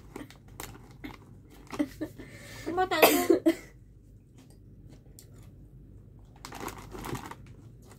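Crunchy snack chips being chewed, with small crisp clicks, and a rustle of the chip bag near the end. The loudest sound is a brief burst of voice about three seconds in.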